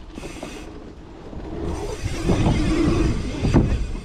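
Wind buffeting the bike-mounted camera's microphone and tyres rolling over packed dirt as a mountain bike rides a dirt-jump line. The rumble gets louder about two seconds in, and there is a sharp knock from the bike near the end.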